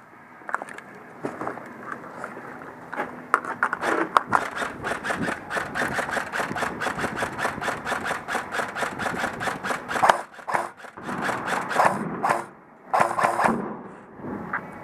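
Airsoft rifle firing a rapid string of shots, several a second, for about six seconds, then shorter strings after a brief pause.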